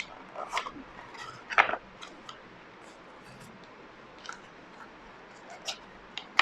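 Scattered crackles and clicks of a small cardboard-and-plastic retail package being handled and opened, with the sharpest click about a second and a half in.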